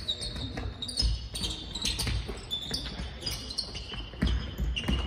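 Basketball bouncing on a sports-hall floor during play: irregular thuds echoing in the large hall, with short high squeaks of players' shoes on the court.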